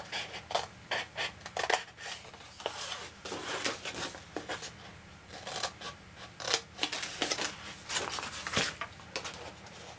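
Scissors snipping through thick grey cardstock, a run of irregular short cuts, with the stiff card rustling as it is handled and turned.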